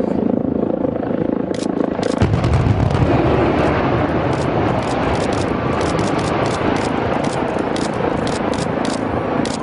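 Explosive demolition of a concrete high-rise tower block: a long run of sharp detonation cracks, about three a second, with a deep rumble of the collapsing building coming in about two seconds in.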